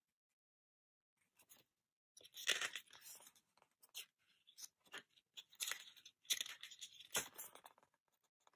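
Pages of a paper album booklet being turned and handled: quiet paper rustles and crinkles in a run of short bursts with a few sharp ticks, starting about two seconds in.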